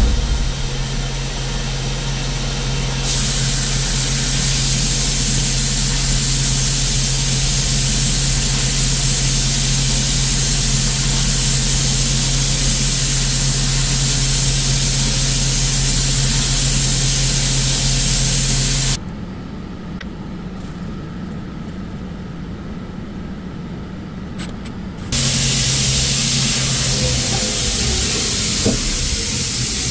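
CNC milling machine spindle running at 8000 rpm, a steady hum, under a loud steady hiss of coolant spray from the nozzle, while a ball endmill finishes 316 stainless steel. About two-thirds of the way through, the hiss and hum drop out for several seconds, leaving a quieter low rumble, then the hiss returns.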